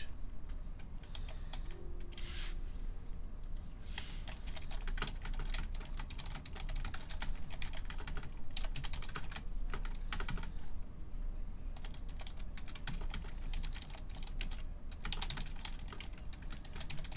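Typing on a computer keyboard: runs of quick, irregular keystroke clicks broken by short pauses.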